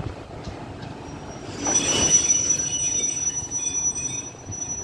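Railway maintenance train's wheels squealing with a steady high-pitched tone as the train creeps slowly along the track, over a low rumble.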